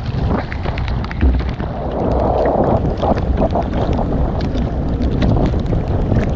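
Strong wind buffeting the microphone, with choppy lake waves slapping and splashing against the canoe's hull in many small sharp splashes.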